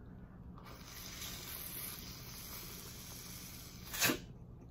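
A giant tiger prawn being cracked open by hand: about three seconds of steady rustling, crackling noise from the shell, then a single sharp snap about four seconds in.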